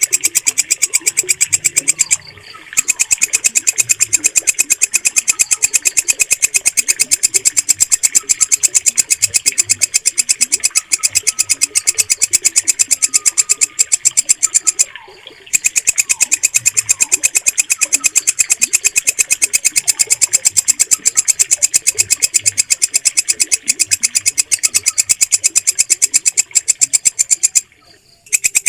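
Walang kecek, a green grasshopper (katydid), singing: a loud, shrill, fast and perfectly even train of chirping pulses that breaks off briefly three times. Faint bird calls sound underneath.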